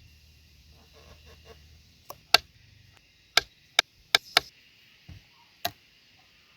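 A series of sharp knocks, about eight of them, irregularly spaced and starting about two seconds in, over a steady high hiss.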